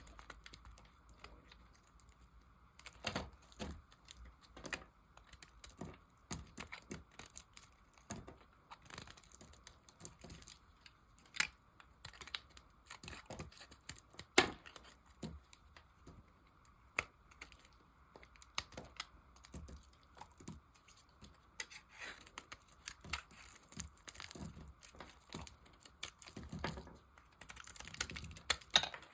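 A knife cutting and carving dry, hardened soap: irregular crisp clicks and crackles as the soap cracks and flakes away, some strokes louder than others.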